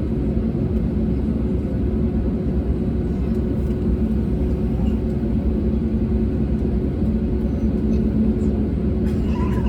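Steady drone of an Airbus A320neo (A320-271N, Pratt & Whitney geared turbofans) heard from the cabin: a dense low rumble with a constant hum that neither builds nor fades.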